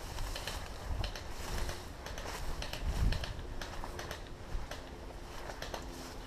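Irregular clicks and knocks over a steady low rumble, with the loudest knock about three seconds in.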